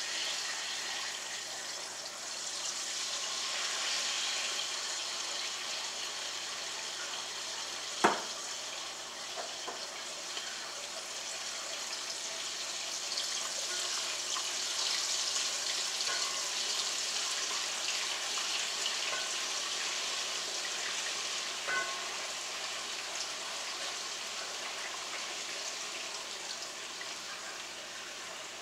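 Vegetable oil and Grace browning sauce sizzling steadily in a hot pot while being stirred. There is a sharp knock about eight seconds in and a lighter one about twenty-two seconds in.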